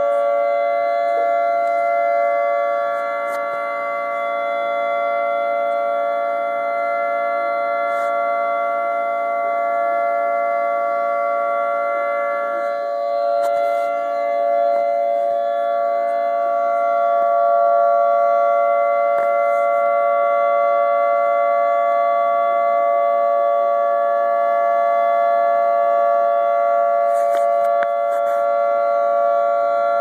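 Outdoor civil defense sirens sounding the tsunami warning: a steady, chord-like tone of several pitches held level, neither rising nor falling, with small swells in loudness.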